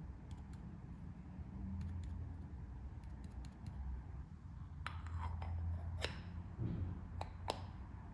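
Coffee-making utensils being handled: scattered light clicks, then a few sharper clinks with a short ring, over a low steady hum.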